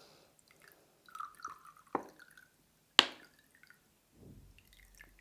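White vinegar poured into a small cup in a short trickle, with a few sharp knocks as the bottle and cup are handled, the loudest about three seconds in.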